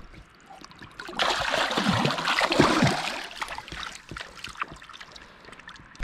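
Splashing in shallow river water as a released blue catfish kicks away, loudest for about two seconds starting a second in, then fainter trickling and dripping.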